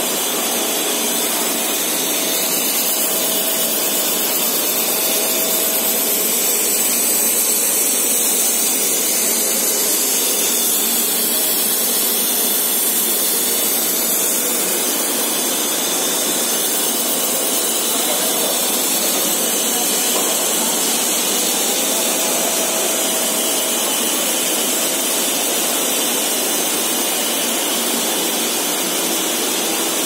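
Rubber extrusion and vulcanization line machinery running with a steady, even hiss.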